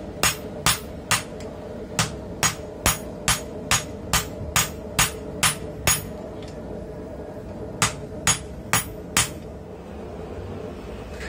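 Hand hammer blows on red-hot steel held in tongs on the anvil: a run of sharp ringing strikes about two a second, a short pause, then four more. A steady hum sits underneath throughout.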